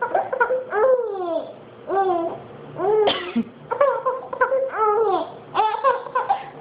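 A girl laughing in repeated high-pitched bursts, about seven of them, each rising and falling in pitch.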